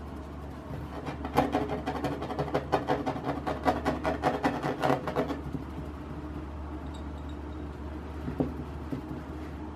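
Fingers scratching quickly on a table surface, a fast run of scratchy clicks lasting about four seconds from about a second in, over a steady low hum.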